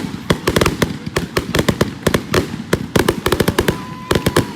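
Fireworks going off in a rapid, irregular string of sharp bangs and crackles, several a second, with a faint steady whistle near the end.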